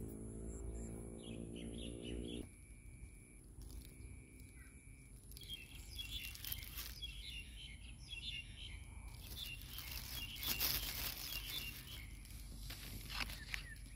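A steady low mechanical hum cuts off suddenly about two and a half seconds in. Then come irregular crinkling and rustling of clear plastic fruit bags being brushed and handled, loudest about ten seconds in, with bird chirps mixed in.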